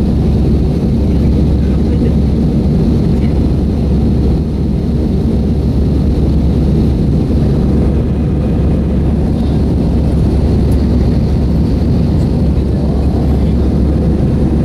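Airliner cabin noise in flight: the steady, deep drone of engines and rushing air, with a faint high whine above it.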